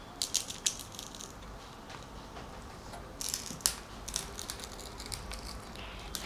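Light plastic clicks and scrapes of a small plastic powder bottle being handled and its screw cap twisted open: a few clicks in the first second, then a denser run about three seconds in.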